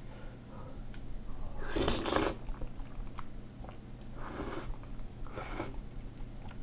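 Slurping and chewing of thick hand-made noodles in perilla-seed broth: three short slurps, the loudest about two seconds in, then two more near four and a half and five and a half seconds, with chewing between.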